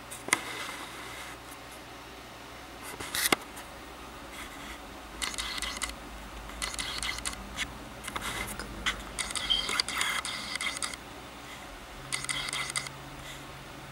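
Camera lens autofocus motor whirring in four short bursts as it hunts and fails to lock focus on a close-up subject. A single sharp click comes about three seconds in.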